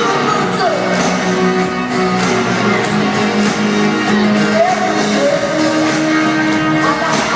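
Live rock band playing with a lead vocal singing over it, heard from the audience in a large arena, with the hall's echo.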